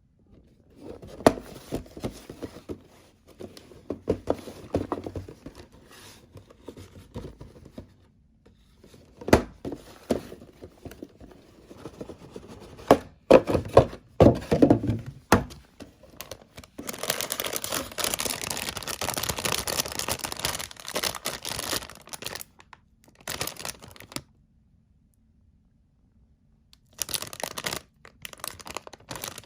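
Packaging of a plastic model kit being opened and handled: plastic wrap crinkling and tearing, with knocks and clicks of the box and parts. A long stretch of continuous rustling falls in the middle, and it stops for a couple of seconds near the end.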